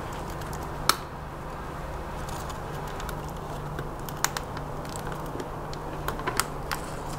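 Scattered light clicks and taps as a UV LED strip is handled and pressed along the inside of a plastic bucket: one about a second in and a cluster near the end, over a steady low hum.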